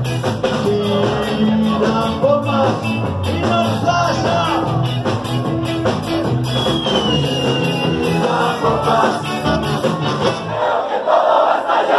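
Live punk rock band playing loud in a small club, heard from within the crowd: drums, bass and electric guitar, with voices singing and shouting. About ten and a half seconds in, the drums and bass drop out briefly.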